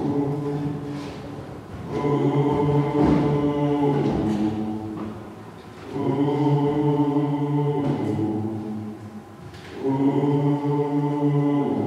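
A choir singing slow, held chords in phrases of about two to three seconds, with short dips in level between them.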